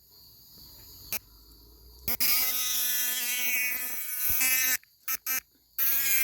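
Cicada calling close by: a loud buzz starts about two seconds in and runs for nearly three seconds. It breaks off into two short clicks, then starts again near the end, over a faint steady high hiss of other insects.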